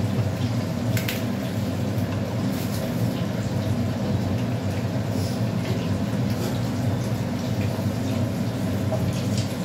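Whole garam masala spices sizzling in hot oil in a kadai, an even hiss over a steady low hum, with a sharper click about a second in.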